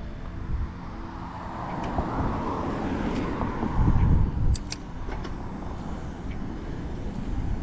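A car passing the bicycle, its tyre and engine noise swelling and then fading over a few seconds, over a steady low rumble that is loudest about four seconds in.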